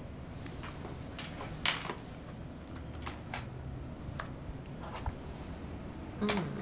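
Keys and trackpad of a MacBook laptop being tapped in scattered, uneven clicks, one sharper than the rest about two seconds in. A short low sound falls in pitch just before the end.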